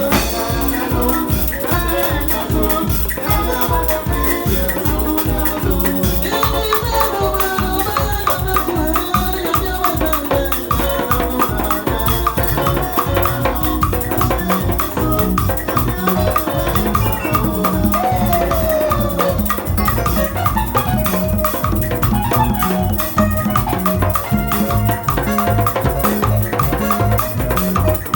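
Instrumental band music with a steady beat, shaker and drums to the fore and gliding melodic lines; a heavier bass line joins about twelve seconds in.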